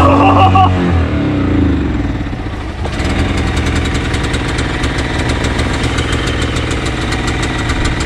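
Small portable inverter generator engine catching on a pull start with the choke on. Its pitch swings for the first second or two, then about three seconds in it settles into a steady run with a regular ticking. It is not running as it usually does.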